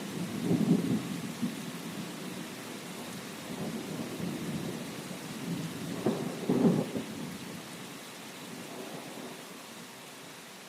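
Steady rain with thunder crackling and rumbling twice, about half a second in and again around six seconds in. The rain fades off gradually toward the end.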